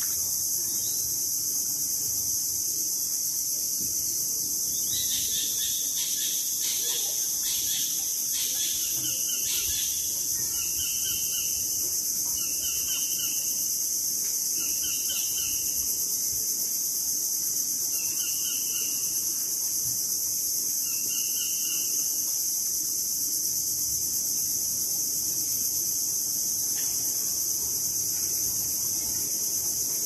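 Steady high-pitched insect chorus drones without a break. A bird calls over it: a quick run of calls about five seconds in, then a short repeated note every two or three seconds until about two-thirds of the way through.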